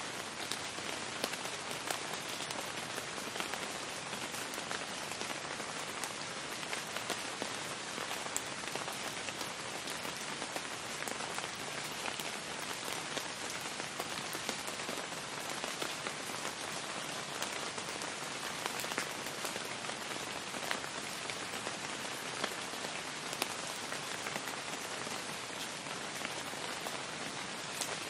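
Steady rainfall: a dense, even hiss of rain with many small drop ticks scattered through it.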